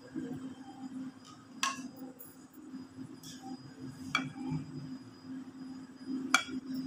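Three sharp clinks on a glass bowl, spread a couple of seconds apart, while cake slices are laid on custard and soaked with milk from a plastic spoon. A steady low hum runs underneath.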